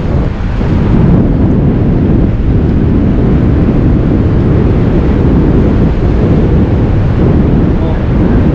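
Loud, steady wind rushing over the microphone, a low rumble of moving air.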